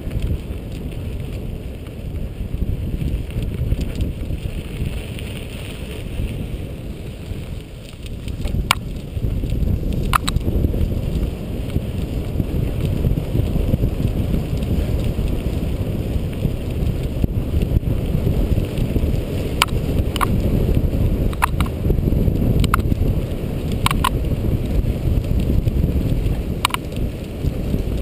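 Cyclocross bike riding fast over a dirt and gravel track: a continuous rumble of wind on the microphone and tyres on the ground, with a handful of short sharp clicks from the bike scattered through.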